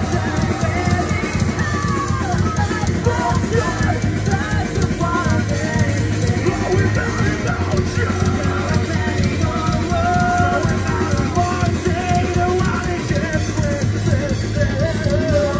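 Loud live rock band playing, with electric guitars and a drum kit, heard from among the audience.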